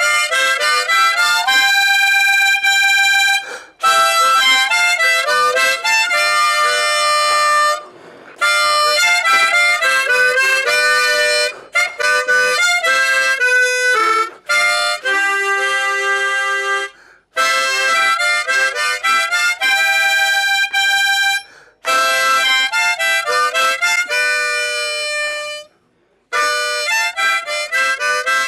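Unaccompanied harmonica playing a melody, often sounding several notes together, in phrases of a few seconds broken by brief pauses.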